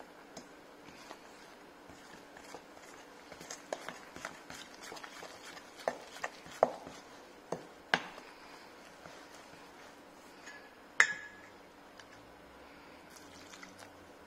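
A spoon stirring flour and ginger beer into batter in a stainless steel mixing bowl: irregular clinks and scrapes against the metal, the loudest knock about eleven seconds in, which leaves the bowl ringing briefly.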